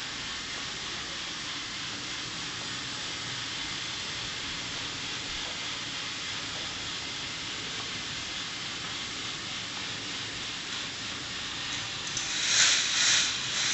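Micro K'nex roller coaster running: the motorized chain lifts haul trains of plastic cars uphill with a steady, even hiss-like whir. Near the end come three louder rattling bursts as the cars run along the track.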